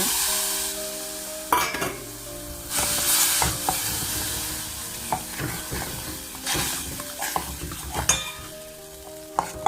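Flour being mixed into just-boiled water in a pan: a spoon stirring and scraping, with hissing swells and sharp clicks of the spoon against the pan.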